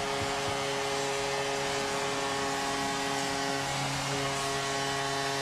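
Hockey arena crowd cheering a goal, over a steady sustained horn-like tone.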